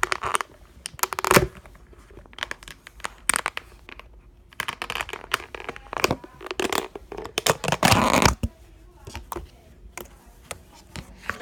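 Hands squishing, stretching and pulling apart a large slime close to the microphone, giving irregular bursts of sticky, crackly noise with sharp clicky pops.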